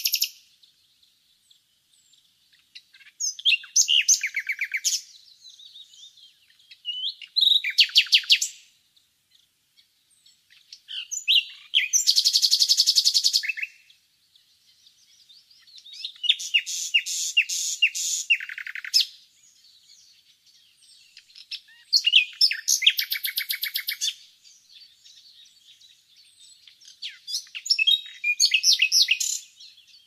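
Nightingale singing: six phrases of rapid repeated notes and trills, each a second or two long, with short pauses between them.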